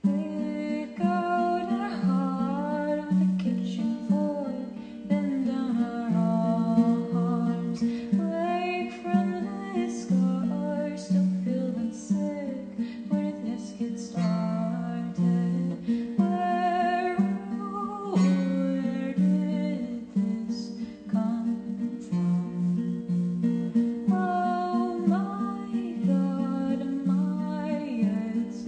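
Acoustic guitar played with a voice singing a melody over it.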